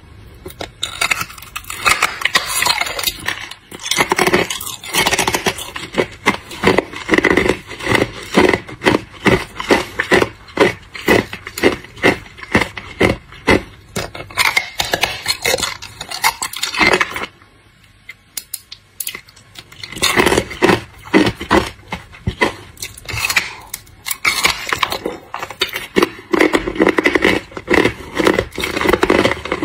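Hard ice being bitten and chewed, a run of sharp crunches in quick succession, with a pause of about two seconds a little past the middle.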